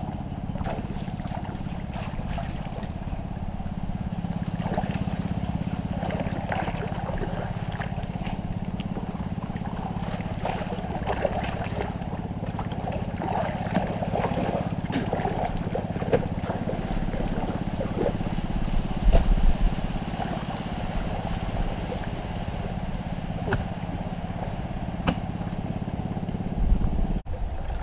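Water sloshing and splashing as men wade and work mud in a muddy fishpond, over a steady low drone. Low thumps come near the end.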